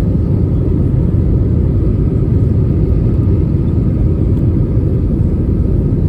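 Steady, even rumble of an Airbus A320neo's cabin in flight: its Pratt & Whitney PW1100G geared turbofans and the airflow over the fuselage, heavy in the low end.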